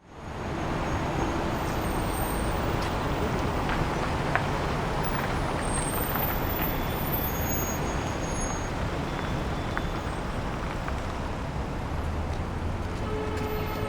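Steady city street ambience: a continuous din with a low traffic rumble and a few faint clicks, fading in at the very start.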